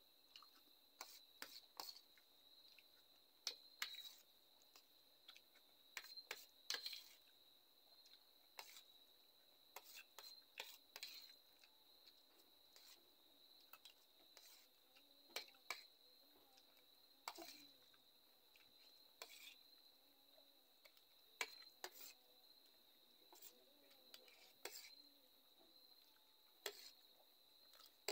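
Faint clinks and scrapes of a metal spoon against a steel plate while eating Maggi instant noodles, as irregular sharp clicks, over a steady high-pitched tone.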